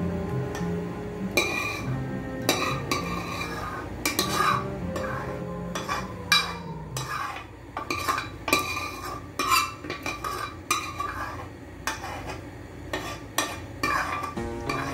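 Metal spoon scraping and clinking against the inside of a saucepan in repeated, irregular strokes, scraping out thick blueberry jam.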